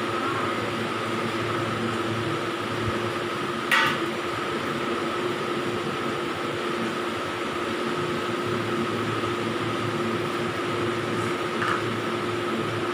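Steady machine hum with a constant high whine, broken by one sharp click a little under four seconds in.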